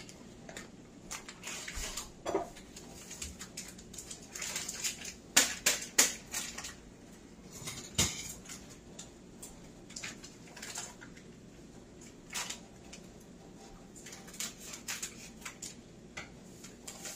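Crinkling and tearing of a Jell-O box's cardboard and inner packet being opened and handled, with scattered sharp clicks and light knocks at irregular intervals, the sharpest near the middle.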